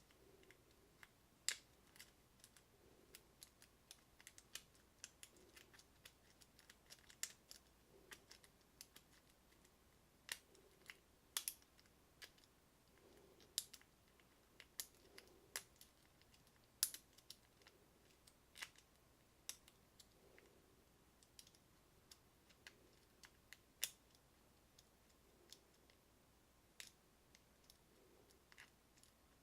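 Small, sharp metallic clicks and ticks at irregular intervals, a few much louder than the rest: a lock pick and tension wrench working the standard pin-tumbler pins of a KIK cylinder with a Schlage keyway during single pin picking.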